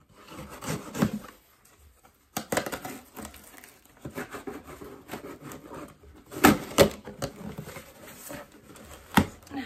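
Parcel packaging being torn open and rustled by hand, irregular crackling with several sharp snaps, the loudest a little past halfway.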